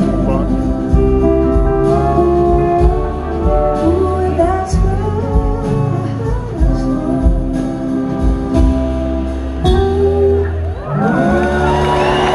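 Live rock band with singing, electric guitars, bass and drums, heard from the audience. About eleven seconds in the song winds down and the crowd starts cheering and whooping.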